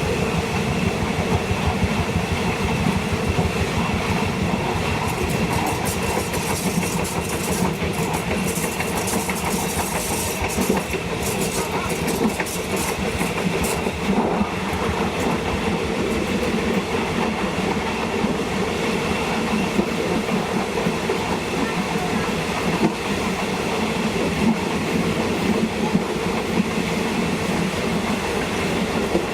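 A State Railway of Thailand train running along the track, a steady rumble with the wheels clacking over the rail joints. A spell of sharper, higher clicking comes roughly a third of the way in.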